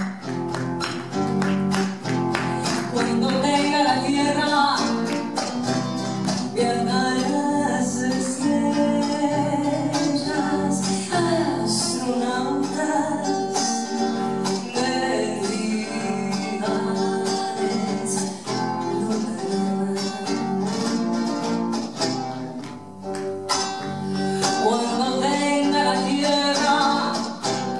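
Acoustic guitar playing an instrumental passage, with quick, dense strums and plucked runs.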